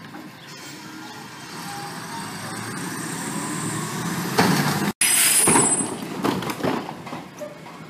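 Rear-loader garbage truck with a compressed natural gas engine running, its sound growing gradually louder over a few seconds. Near the end there is a loud burst of hiss, then several knocks as a plastic recycling cart is wheeled.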